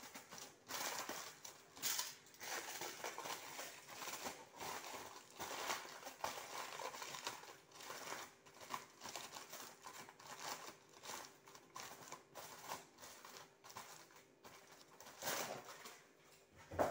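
Aluminium foil crinkling and crackling in irregular bursts as it is pressed and crimped around the rim of a bowl. Near the end there is a louder rustle, then a sharp knock.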